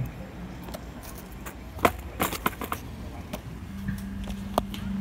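Skateboard clattering on pavement: a sharp smack about two seconds in, then a quick run of knocks from the deck and wheels. Near the end a low steady hum comes in, with one more knock as the camera is handled.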